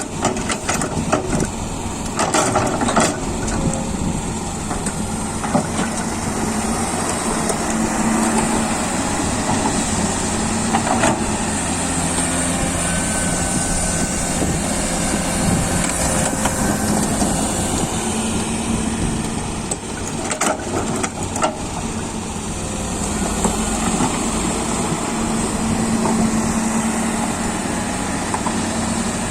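Komatsu PC200 hydraulic excavator's diesel engine running under working load, its pitch shifting as the hydraulics are worked, with scattered knocks and clatters from soil being loaded into a dump truck, loudest about 3 s and 20 s in.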